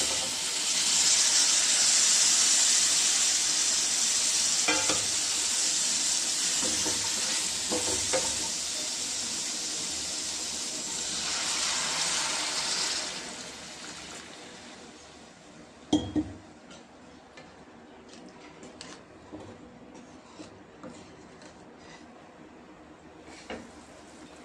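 Chopped vegetables sizzling loudly in hot oil in a pan as they are stirred with a wooden spatula. About eleven seconds in, water is poured in and the sizzling dies down, leaving a quieter stretch of small ticks with one sharp knock about sixteen seconds in.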